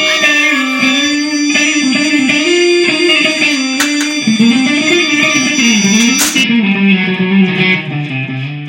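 Spanish-style guitar duet, a plucked melody over chords, ending on a held chord that rings out. Under it runs a steady high whine that stops with a sharp click about six seconds in; another click comes about four seconds in.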